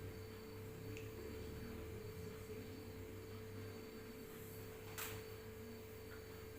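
A faint, steady hum with a constant mid-pitched tone over it, broken by one sharp click about five seconds in.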